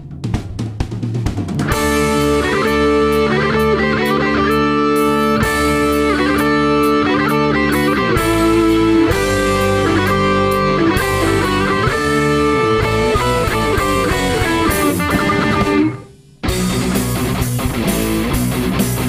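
Instrumental song intro with guitar and drums: sparse drum hits at first, then the full band comes in with sustained guitar chords about two seconds in. The music cuts out for a moment near the end and comes straight back.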